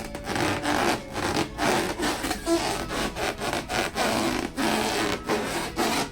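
Rubber balloons being rubbed and squeezed by hand, a run of uneven rubbing strokes about two a second.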